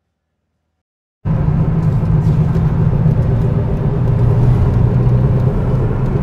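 Near silence, then about a second in a car's cabin noise cuts in suddenly: a steady low rumble of engine and tyres while driving at highway speed.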